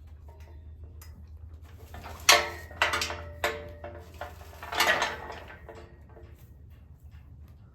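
Horse feed pan or bucket being handled: a few clanks with a short ring, the loudest about two seconds in and another near five seconds.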